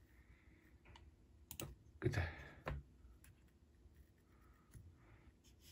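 A handful of separate sharp clicks from a laptop's keys as a login ID is entered, the loudest about two seconds in.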